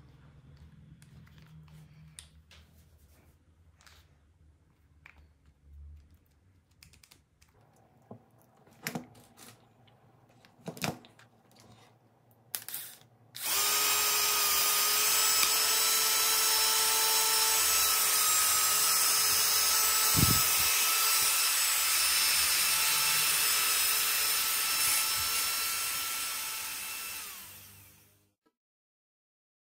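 A few light clicks and knocks from handling, then a cordless drill's DC motor, gearbox and chuck run loose on the bench from clip leads. It spins up suddenly about halfway in with a steady high whine, runs for about fourteen seconds, then winds down and stops near the end.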